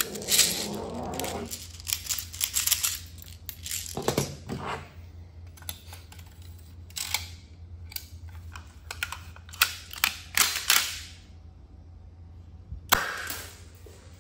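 Marushin airsoft gun being handled and loaded, making a string of sharp plastic-and-metal clicks and clacks with short pauses between them. A steady low hum runs underneath.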